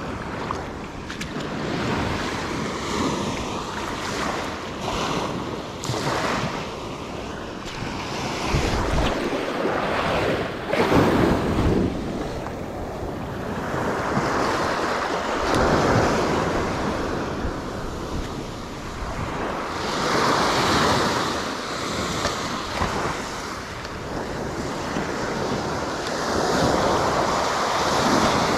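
Small waves breaking and washing up the sand, swelling and easing every few seconds, with wind buffeting the microphone.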